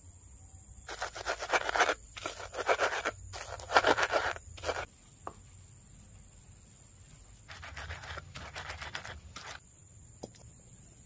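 Rough scraping and rubbing strokes in short runs, one over the first half and another a little past the middle, with a couple of sharp clicks in between.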